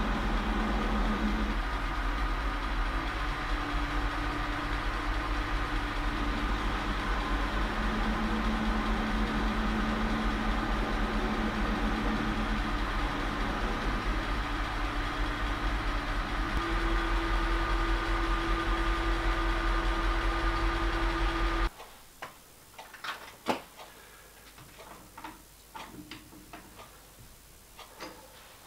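Metal lathe running steadily, with a low motor hum and a few steady gear tones that shift now and then. The running cuts off suddenly about 22 seconds in, leaving only faint scattered clicks and light metal knocks.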